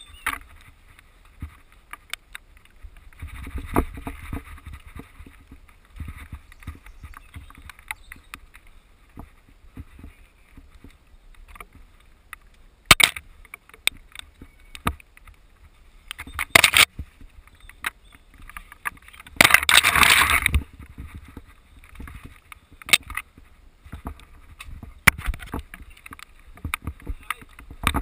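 Mountain bike riding fast down a rough forest dirt trail, heard from a camera mounted on the rider or bike: a steady wind rumble on the microphone with frequent sharp knocks and rattles from the bike over the ground. A few louder bursts of noise come through, the longest lasting about a second around two-thirds of the way in.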